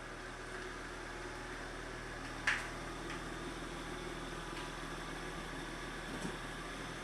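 Steady low hum and hiss of room tone, with one short click about two and a half seconds in.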